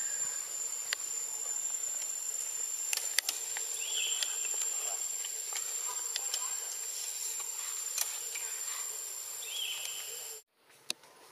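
Tropical forest ambience: a steady high-pitched insect drone, with a short call repeating every few seconds and a few sharp clicks. The sound cuts off suddenly near the end.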